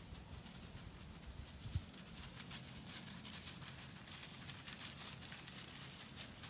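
Dogs running through dry fallen leaves: faint, quick crackling and crunching of footfalls in the leaf litter, growing busier from about two seconds in. A single low thump comes a little under two seconds in.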